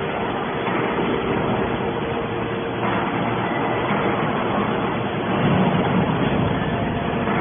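Hydraulic scrap-metal baler running: a steady mechanical hum and hiss that gets a little louder about five and a half seconds in.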